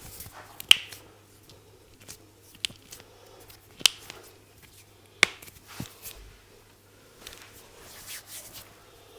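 Hands giving a head massage: sharp snaps, the four loudest spread over the first five seconds, with soft rubbing of hands on skin and hair between them and a longer stretch of rubbing near the end.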